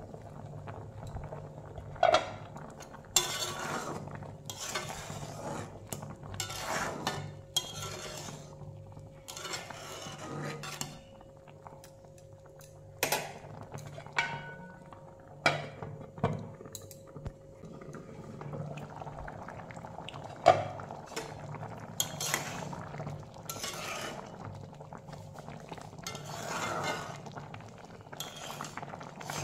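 A metal lid and utensils clinking and scraping against a metal cooking pot, with several sharp clinks, while the curry in it bubbles on the heat. A steady low hum runs underneath.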